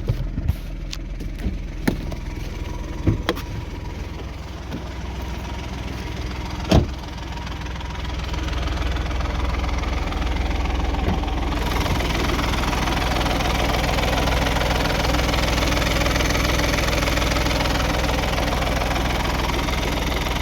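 Car engine idling, with a few sharp clicks in the first seven seconds. About twelve seconds in, a louder, harsher noise joins the engine: the noisy clutch.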